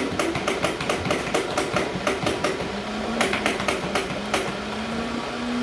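Battery-powered automatic Nerf Rival blaster firing balls in rapid runs of sharp clicks, about eight a second, with short pauses, while its motor hums steadily in the second half. Its battery is low, so it shoots weakly and jams.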